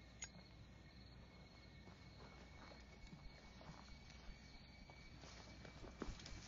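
Faint night ambience: crickets chirping steadily, with a few soft footsteps near the end.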